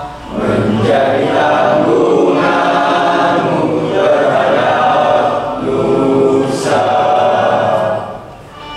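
A class of students singing an Indonesian patriotic song together as a group, in long held notes; the singing falls away near the end.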